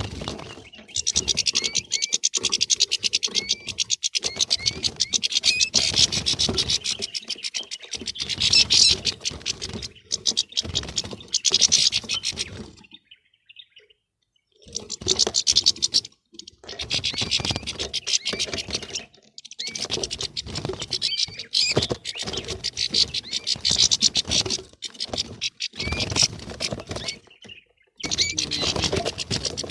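European goldfinches twittering and chattering in fast, dense runs of notes, the squabbling chatter of a flock. The runs come in bursts of a few seconds with short breaks, and there is one longer pause of about two seconds around the middle.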